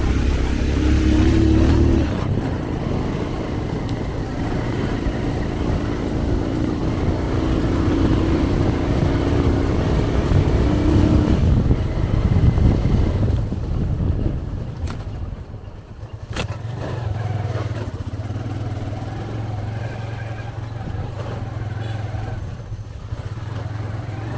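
Motorcycle engine running while riding, with a rising and falling note for the first half. About halfway through it drops in level, with two sharp clicks, then settles into a steadier, lower engine note.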